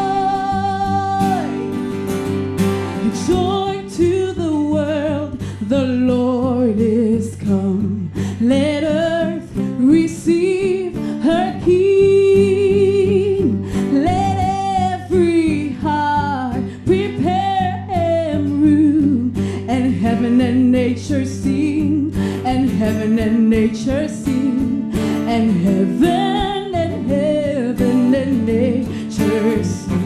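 A woman singing a melody with vibrato into a microphone, accompanied by two strummed acoustic guitars; she holds a long note that ends about a second and a half in.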